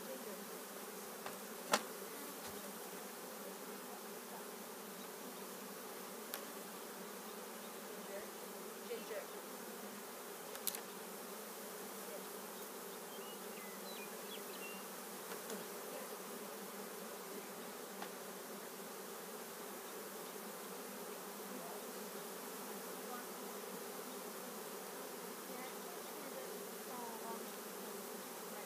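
A mass of honeybees from a freshly installed package buzzing around the hive in a steady, droning hum, with a couple of faint knocks.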